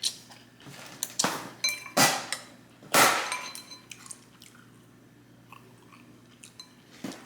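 Eating sounds: several crisp bites and chewing in the first three seconds, the loudest about three seconds in, with light clinks among them. Then quieter chewing with small clicks.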